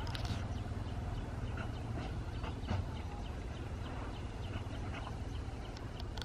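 Outdoor ambience: a steady low rumble, like wind on the microphone, with many faint short high chirps scattered through it.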